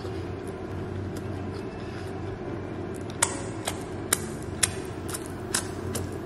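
Close-up eating noises: sharp wet smacks of lips and fingers as fingers are licked clean, about two a second from around three seconds in, over a steady low hum.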